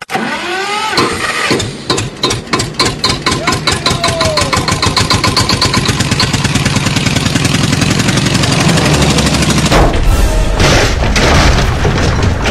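A small engine starting up, its firing pulses speeding up into a steady running drone, with a louder, rougher stretch near the end.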